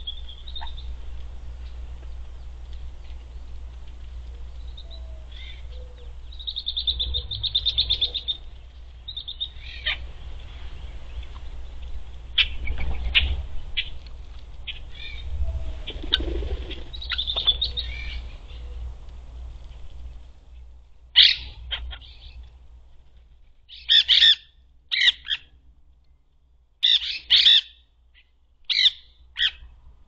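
Parrots at a seed feeder calling: scattered chattering and short squawks, then a run of about six loud, short, harsh screeches in the last third.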